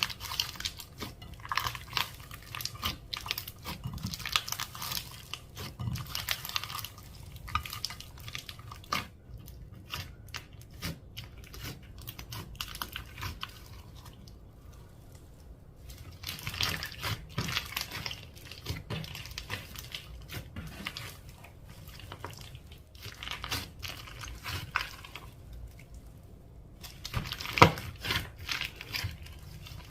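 Slime being kneaded and stretched by hand, giving irregular sticky squelches and rapid crackling air-bubble pops, with a sharper pop near the end.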